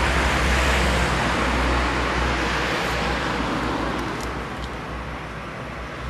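Outdoor street noise: a steady rushing sound with a deep rumble, easing off gradually after about two seconds.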